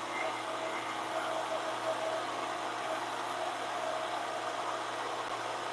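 VEVOR 13-inch benchtop thickness planer running steadily, its cutterhead planing a board as the feed rollers draw it through.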